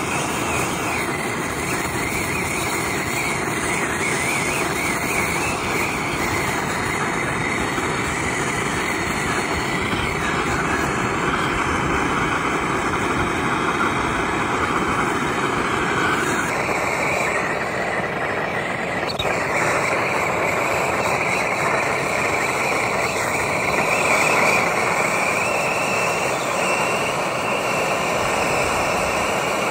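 Hose-fed soldering torch burning steadily as it heats a brass ball valve and its copper pipe joint for sweat-soldering.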